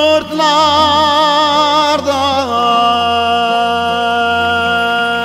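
A man singing a Turkish folk song of the Teke region, drawing out one long note: it wavers with a wide vibrato at first, then drops in pitch about halfway through and is held steady.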